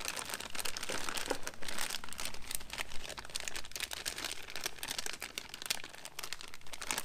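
Clear plastic parts bag crinkling and rustling as gloved hands handle it: a continuous run of irregular small crackles.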